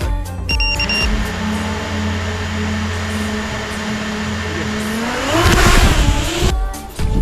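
Motors of a 7-inch FPV drone humming steadily through wind noise. About five seconds in, the pitch rises and the sound gets louder as the throttle is pushed up, then it cuts off suddenly.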